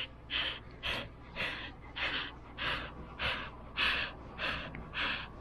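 Husky panting right up against the microphone: quick, even breaths, a little under two a second.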